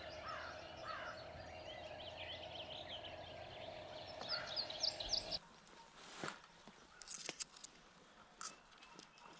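Wild birds calling and chirping, many short sweeping notes over a steady low hum. About five seconds in the sound cuts off abruptly to a quieter backdrop with scattered clicks and rustles.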